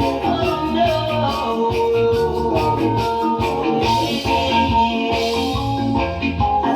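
Reggae music: a song's intro with organ or keyboard chords over bass and drums, steady beat.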